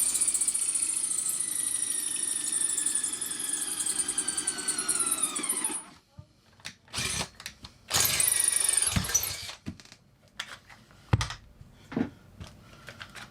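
Power drill boring a pilot hole into the steel bed frame: a loud motor whine whose pitch sags as the bit bites, cutting off about six seconds in. Two shorter bursts of drilling follow, then a few knocks.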